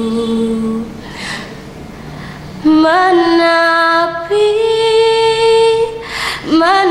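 A young woman singing an Indonesian pop ballad solo. She holds a note until just under a second in, draws an audible breath, then sings long, steady held notes without clear words from about three seconds in, with another breath near the end.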